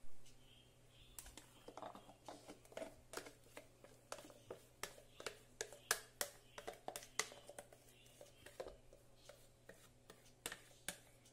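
Light, irregular clicks and scrapes of a steel mixer jar being emptied of thick mango batter into a glass bowl, over a faint steady low hum.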